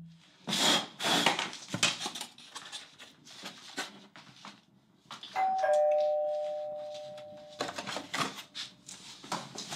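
Light clicks and taps of thin wooden model pieces being handled and fitted together. About five seconds in, a two-note doorbell chime, ding-dong, higher note then lower, rings out and fades over about two seconds.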